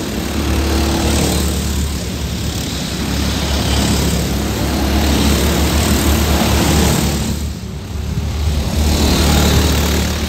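Several rental go-kart engines running at speed as a group of karts passes by, the sound swelling and fading as they go past, with a short dip about three quarters of the way through before it swells again.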